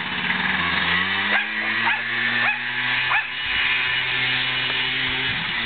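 A dog barking in a quick run, about two barks a second, chasing a quad (ATV) whose small engine runs steadily underneath, its pitch shifting a little over a second in.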